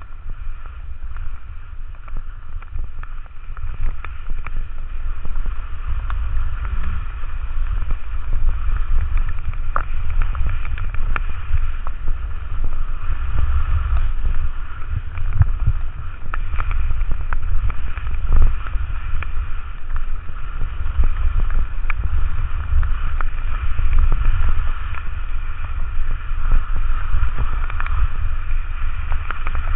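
Wind buffeting the microphone of a camera worn while skiing downhill, a heavy uneven rumble, over the steady hiss of skis sliding on wet snow, with scattered small ticks.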